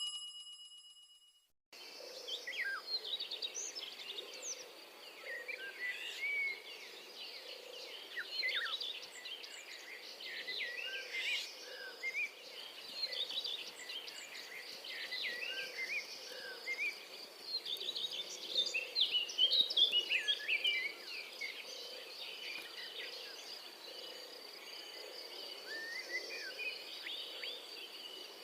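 Many birds chirping and calling in quick, overlapping short notes, over a steady high insect drone. The sound starts about two seconds in, after a brief silence.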